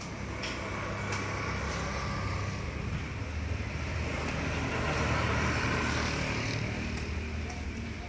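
Road traffic going by, with one vehicle's engine and tyre noise swelling to a peak about halfway through and then fading.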